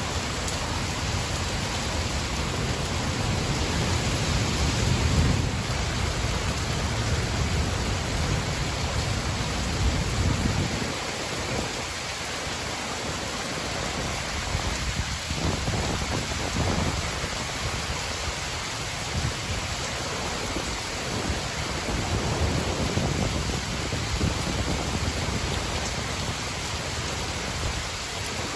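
Steady heavy rain with thunder rumbling low underneath, the rumble strongest over the first ten seconds or so and swelling again in waves later on.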